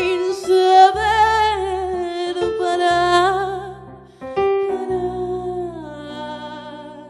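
A woman sings long held notes with vibrato over sustained chords on a digital stage piano; the last note slides down and the sound fades away near the end.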